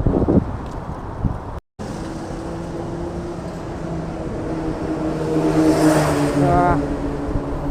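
A motor vehicle's engine hum, steady and then swelling around six seconds in, like a vehicle passing close by. The sound drops out briefly about a second and a half in.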